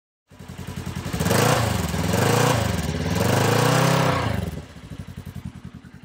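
Engine revving: it catches about a third of a second in, rises and falls in pitch three times, then drops back to a quieter idle with evenly spaced firing pulses.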